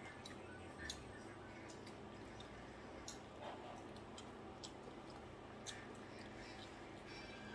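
Faint eating sounds: chewing, with scattered small clicks and mouth smacks about once a second as roast meat and potatoes are picked apart and eaten by hand.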